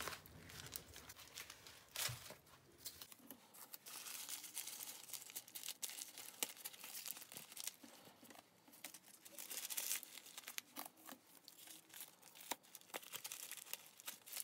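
Newspaper crinkling and masking tape being pulled and torn, as a scrunched newspaper ball is taped onto a newspaper puppet head. The sound is faint and made of irregular crackles and rustles.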